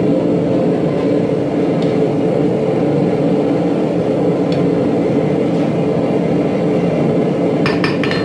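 Forge running with a steady rushing hum, and a few light taps near the end.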